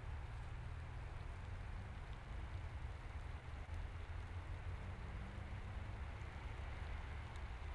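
Wind rumbling on the microphone over a steady outdoor hiss, with no distinct events.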